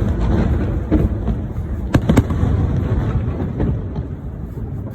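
Aerial fireworks bursting: a continuous low rumble of explosions, with sharp bangs about a second in and two close together around two seconds in.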